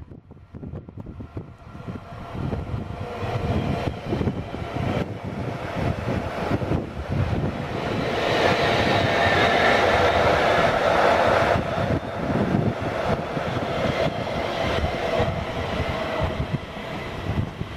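Stadler FLIRT electric multiple units running through the station: a rolling rumble and hiss that builds up and is loudest about eight to twelve seconds in, as one passes close by.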